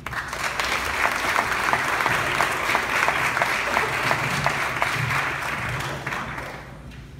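Audience applauding, a dense patter of many hands that dies away about six seconds in.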